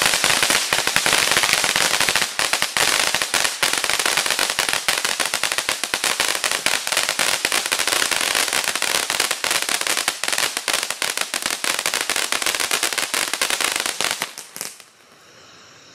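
Broad Fireworks BDFT036 ground fountain firework spraying sparks with a steady hiss and dense rapid crackling, then burning out about a second before the end. Faint steady insect chirring follows once it stops.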